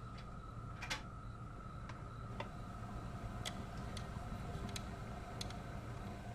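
Record player running with a faint steady hum, and scattered light clicks, roughly one every half second to a second, as the tonearm is handled over the spinning record before the needle goes down.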